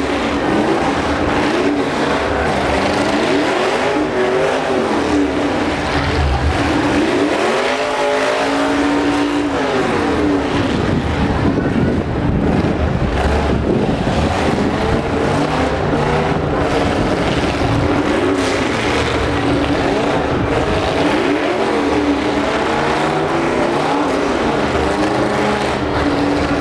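Several demolition derby trucks' engines revving hard together, their pitch rising and falling again and again over a steady engine drone.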